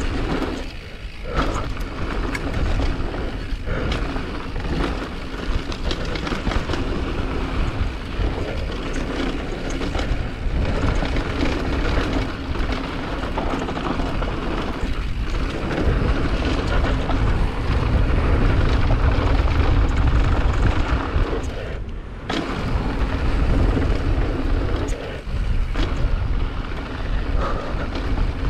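Loud, steady rushing wind noise on the microphone over a low, even motor drone, with two brief drops in level, one about a second in and one near the end.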